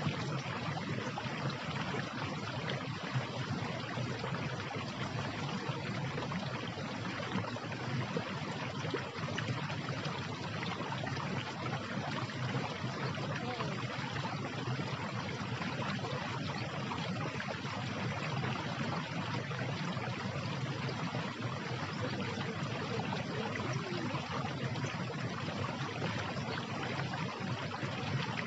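Steady, unbroken rushing of flowing water.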